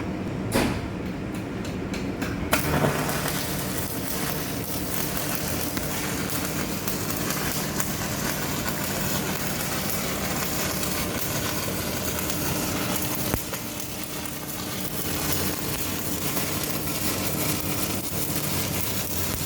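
Stick arc welding with a Kobewel KA 400 DC transformer welder: after a few short scratches the arc catches about two and a half seconds in and then crackles and sizzles steadily, over a steady low hum.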